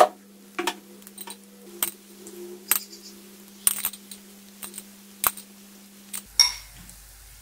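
Ajwain-leaf pakoras in gram-flour batter frying in hot oil in a kadhai, with sharp crackling pops about once a second over a faint background as more battered leaves are dropped in. A steady low hum runs underneath and stops near the end.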